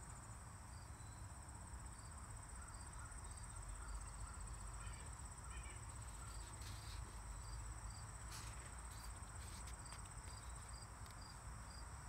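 Insects chirping in the grass: a steady high trill with a regular high chirp about twice a second, over a faint low rumble. A few faint clicks come in the second half, as a book page is handled and turned.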